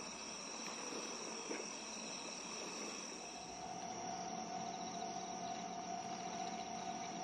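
Crickets and other insects chirping steadily in several high, continuous trills. About three seconds in, a steady ringing tone joins them and holds.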